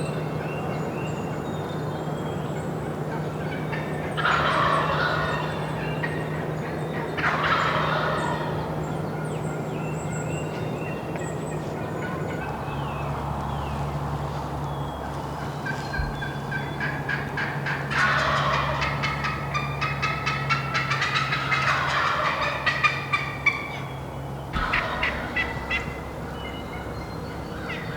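Wild turkey gobblers gobbling: one gobble about four seconds in, another about seven seconds in, then a longer run of overlapping gobbles from about eighteen to twenty-four seconds. Faint songbird chirps and a steady low hum run underneath.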